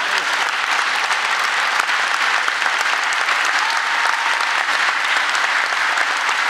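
A large standing audience applauding steadily, many hands clapping at once.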